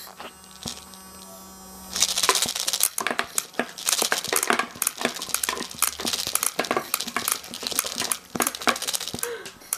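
Homemade motor-driven airsoft gun: its small hobby motor hums steadily, then from about two seconds in a rapid, irregular clatter of plastic BBs being flung out and hitting the cardboard box, paper targets and floor.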